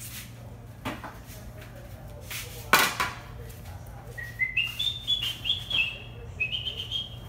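A few knocks of cookware on the stove, the loudest a sharp clank about three seconds in, then someone whistling a short tune in steady, stepped notes over the second half.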